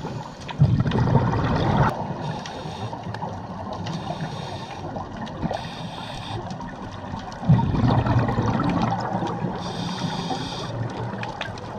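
Scuba diver breathing through a regulator underwater: two long surges of exhaled bubbles, about half a second and seven and a half seconds in, with shorter hissing breaths between them.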